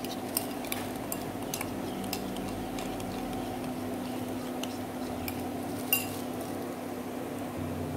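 A metal spoon stirring a fish-sauce and pepper seasoning mix in a ceramic bowl, with light irregular clinks of spoon on bowl and one louder ringing clink about six seconds in. A steady low hum runs underneath.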